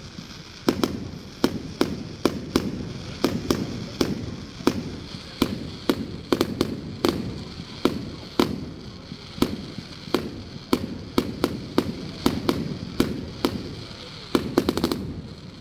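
Fireworks going off: a steady run of sharp bangs, about two a second, with a quick cluster of bangs near the end.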